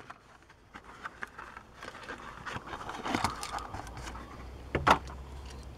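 Plastic blister being peeled and pulled off a Hot Wheels cardboard backing card: irregular crinkling and scraping with small clicks, and one louder crack a little before the end.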